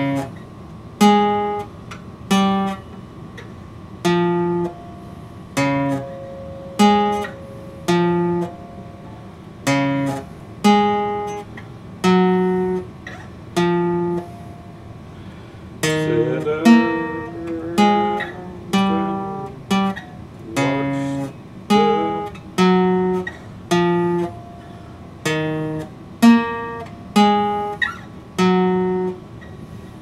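Epiphone acoustic guitar strummed one chord at a time, about once a second, each chord left to ring and fade, with a busier run of notes about halfway through.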